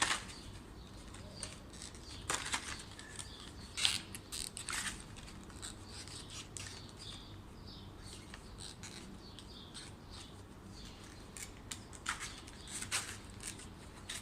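Scattered small clicks and plastic rustling from hands working with small parts, in this case opening and preparing a two-part quick-set epoxy package.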